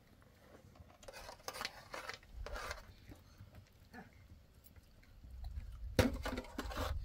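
Spoons scraping and clinking against a large metal serving platter while people eat from it: a handful of short scrapes and one sharp clink about six seconds in.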